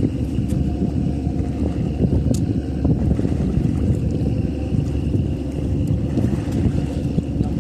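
Boat motor running steadily, a continuous low rumble, with wind buffeting the microphone.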